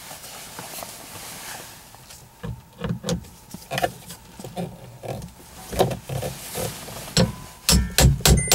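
A screwdriver working at the plastic overhead room-lamp console of a Kia Opirus (Amanti): irregular clicks, scrapes and knocks of the tool against the plastic. Near the end a loud, regular knocking starts, about three strokes a second.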